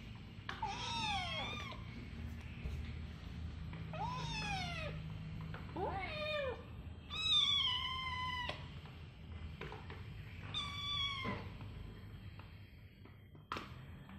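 Kitten meowing five times in short, high, bending calls, with one longer, louder meow about seven seconds in. A single sharp click comes near the end.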